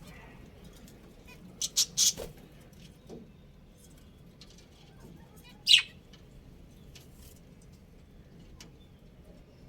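Budgerigars giving a few short, sharp chirps: a quick cluster of three or four about two seconds in and one louder call near six seconds, with little else between.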